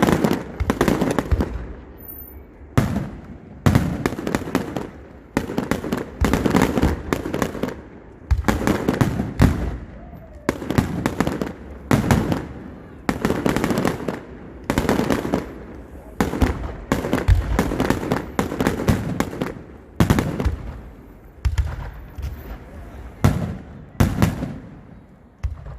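Fireworks display: shells bursting one after another, a sudden bang about every second, each dying away before the next.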